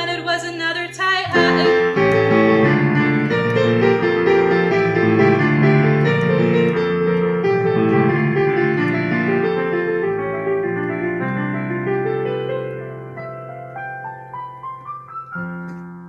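Electric keyboard playing piano chords as a song's instrumental outro, after a sung note ends about a second in. From about 11 seconds a run of notes climbs up the keyboard while the sound fades, and a new held chord comes in just before the end.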